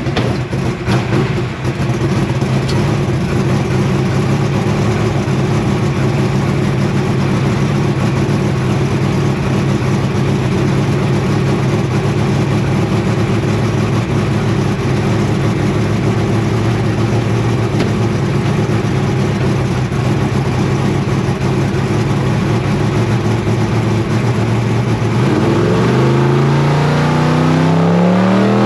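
Drag race car's engine running steadily, heard from inside the cockpit; about 25 seconds in it speeds up, the pitch rising.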